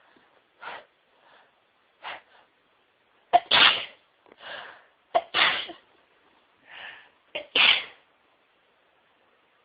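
A person in a sneezing fit: a couple of soft breaths, then three loud sneezes about two seconds apart, each after a gasping intake of breath.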